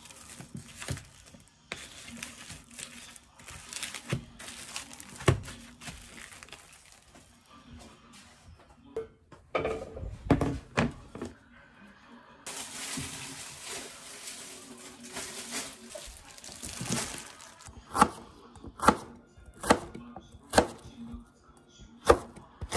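Cling film crinkling as it is pulled over a foil tray, then the dry rustle of onion skin being peeled. After that a kitchen knife slices a red bell pepper on a cutting board, ending in a run of sharp knife strikes on the board, roughly one every half second to a second.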